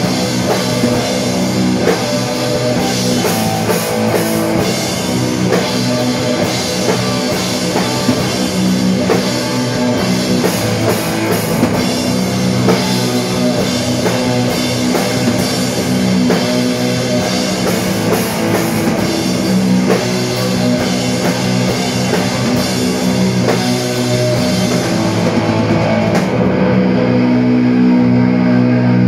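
Loud live rock band of distorted electric guitars and drum kit playing. A few seconds before the end the drums stop, leaving the guitars ringing on in steady low sustained tones.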